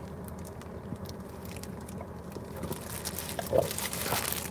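A person eating bread close to the microphone: soft biting and chewing with small clicks and a light crinkle of its paper wrapper, over a steady low hum.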